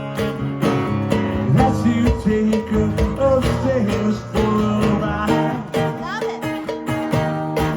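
Live band playing with guitars, a cowbell keeping a steady beat.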